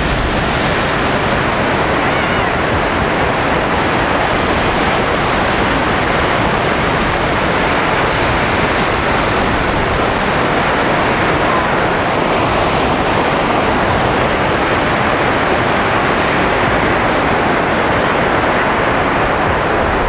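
Steady rush of wind and breaking sea surf, an even loud noise that hardly changes.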